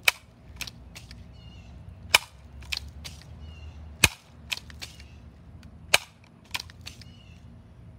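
Crosman Legacy 1000 multi-pump air rifle being pumped: a sharp snap about every two seconds, each followed by a softer click. The steady rhythm is that of the pump lever being cycled to build air pressure before a shot.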